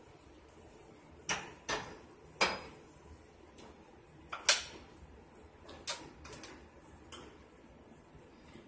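Scattered sharp knocks and clinks of kitchen dishes and a foil baking pan being handled on a stovetop, about half a dozen separate strikes with the loudest near the middle.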